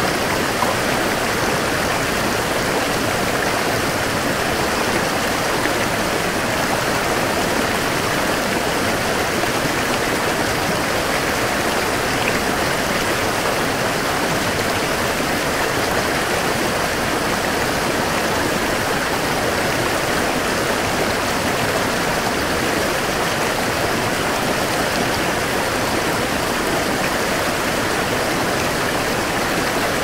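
Steady, unbroken rush of running water.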